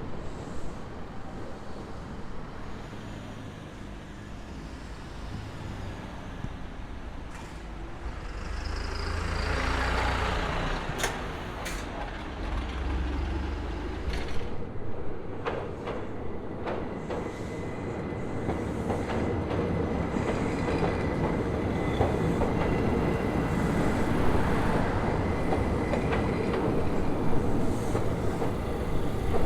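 Electric train running on street-level rails amid road traffic, its rumble growing louder toward the end, with a few sharp clicks near the middle and a thin high steady tone in the second half.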